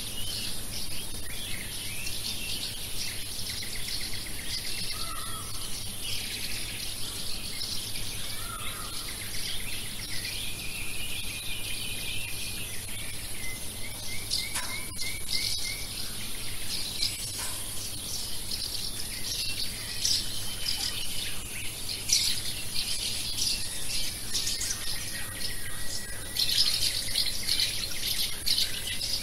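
Many small birds chirping and singing in a busy dawn chorus over a steady high-pitched insect drone, with a short rapid trill about halfway through.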